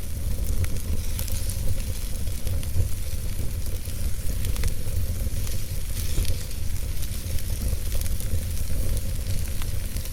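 Wood fire burning in a fireplace: a steady low rumble of flames with frequent small crackles and pops from the burning logs.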